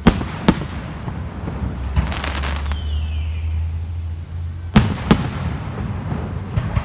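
Aerial fireworks going off: two pairs of sharp bangs, one at the start and one about five seconds in, with crackling bursts between and after them and a short falling whistle about three seconds in.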